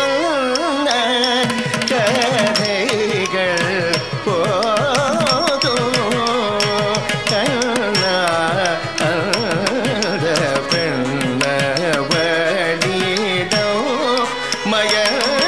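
Carnatic music of the kind that accompanies Bharatanatyam dance: a voice sings a winding, ornamented melody over a steady run of quick percussion strokes.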